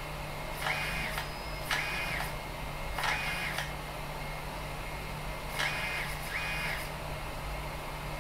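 Extruder stepper motor of a BIQU Magician delta 3D printer feeding filament in short runs, about five times. Each run starts with a click and is a brief whine that rises in pitch, holds, then falls as the motor speeds up and slows down. A steady low hum runs underneath.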